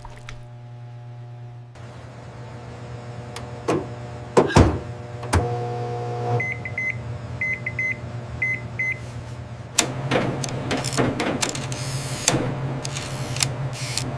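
Microwave oven running with a steady low hum, with a run of short high beeps in small groups about six to nine seconds in. Scattered knocks and clicks, one loud knock about four and a half seconds in and more toward the end.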